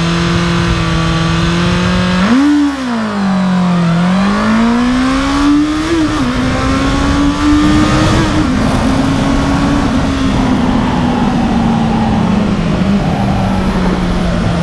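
Honda CB650R's A2-restricted (35 kW) inline-four engine on a 0–100 km/h launch: revs held steady at a standstill, then the clutch is let out about two seconds in and the revs sag before climbing. The engine revs up through the gears with two quick upshifts, at about six and eight seconds, then winds down steadily off the throttle, with rushing wind throughout.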